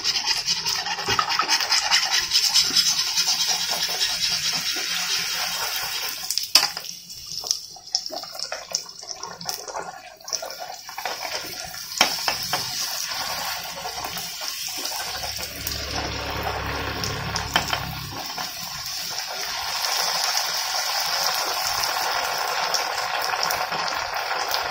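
Semolina golgappa puris sizzling and crackling as they deep-fry in hot oil in an iron kadhai. A metal spoon clicks a few times against the puris and the pan, and the sizzle eases for a few seconds in the middle.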